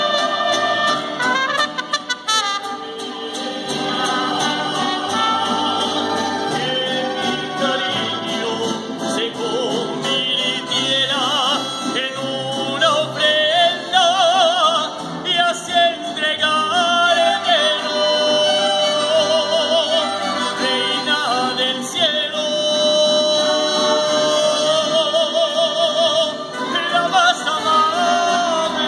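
Mariachi band performing: a male voice sings long notes with heavy vibrato over bowed violins and strummed guitars.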